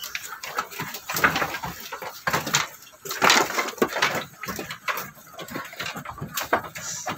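Goats feeding on cut grass: irregular rustling and crunching of the forage, with scattered sharp knocks.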